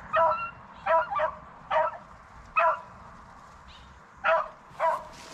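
Hunting beagle baying in about seven short, high yelping calls, spaced unevenly with a pause in the middle: a hound giving voice as it runs a rabbit.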